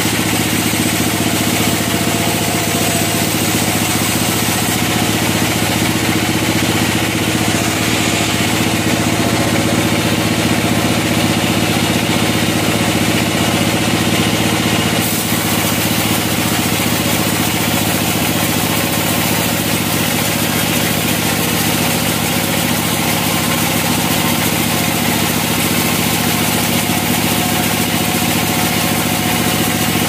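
Band sawmill running steadily, its engine droning as the blade saws through a mahogany log.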